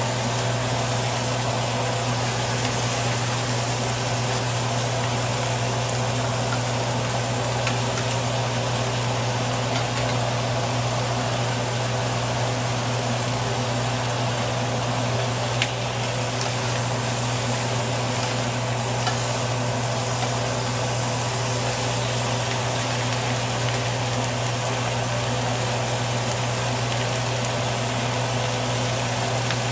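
Eel pieces frying in a cast-iron skillet, a steady sizzle over a steady low hum, with one sharp knock about halfway through.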